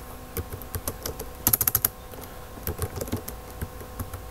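Computer keyboard keys clicking as a short command is typed: a quick run of keystrokes about one and a half seconds in, then scattered single presses.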